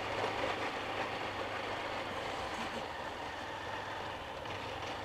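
Small motorcycle engine running steadily as the bike rides along a street, with a low hum under the road noise.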